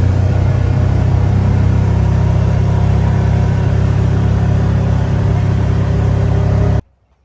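Vehicle engine running steadily with a deep hum while driving, cutting off suddenly near the end.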